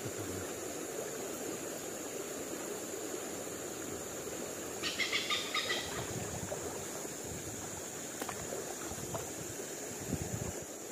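Forest stream water flowing steadily under a constant high-pitched drone. About halfway through comes a brief high rattling call lasting about a second.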